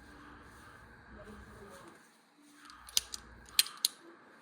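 Craftsman Quick Flip pocket knife being handled: three sharp metal clicks in the second half.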